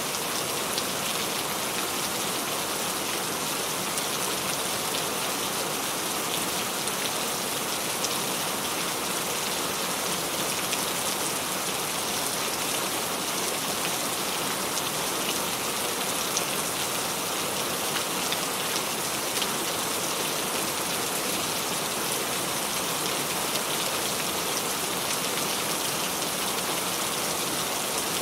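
Steady rainfall recording: an even hiss of rain with faint scattered drop ticks, unchanging throughout.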